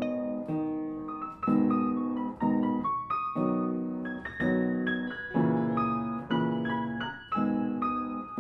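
Instrumental music: chords struck roughly once a second, each left to ring and fade.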